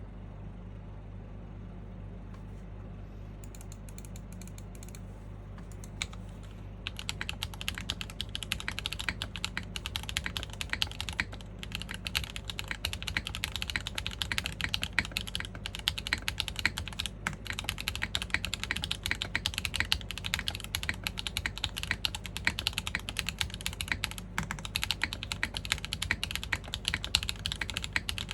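Typing on a custom mechanical keyboard: an IRON165 R2 with an aluminium plate, full gasket mount, factory-lubed SWK Neon switches and KKB Vibrato keycaps. A few scattered keystrokes come first, then steady fast typing from about seven seconds in, over a low background hum.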